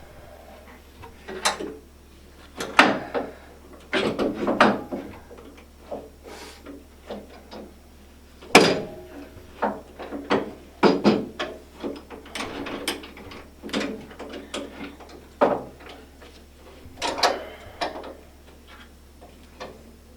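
Irregular metal clicks, clanks and knocks of hand tools and treadmill frame parts being worked, some in quick clusters and one sharper knock near the middle, as a tight-fitting part is forced into place during assembly.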